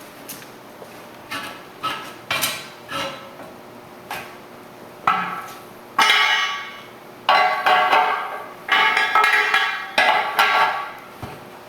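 Metal tire-mounting tools clanking against a steel backhoe wheel rim as the tire bead is worked on, each strike ringing briefly. Scattered lighter knocks come first, then a run of louder ringing clanks from about five seconds in.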